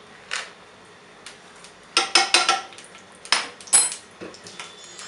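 A metal spoon and small kitchen containers clinking and knocking as they are handled and set down: scattered sharp clinks, a quick run of them about two seconds in, and a brighter clink with a short metallic ring near the end.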